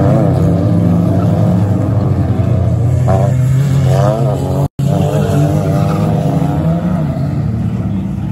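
Engines of several racing cars revving through a dirt-track bend, their pitch rising and falling as each car accelerates out of the corner. About halfway through, the sound drops out for an instant.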